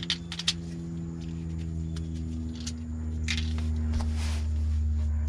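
A steady low drone of several held tones, slowly growing louder, with a few light clicks and rustles of small hardware being handled, mostly near the start.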